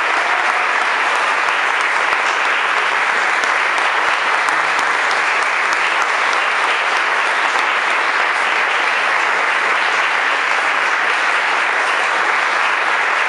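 Audience applauding steadily, a dense, even patter of many hands clapping, with no break.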